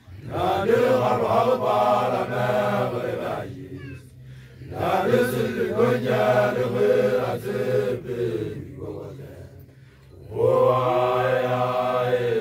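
Group of young Basotho initiation graduates chanting together in three long phrases separated by short pauses.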